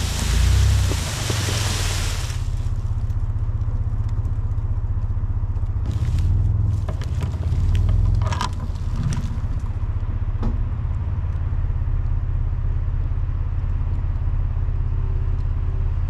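A vehicle engine running steadily with a low rumble. A loud rushing, scraping noise for the first couple of seconds, then a few sharp cracks about six to nine seconds in.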